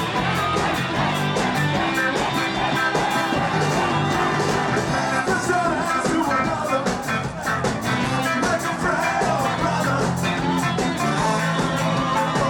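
A ska band playing, with singing over a steady, driving beat.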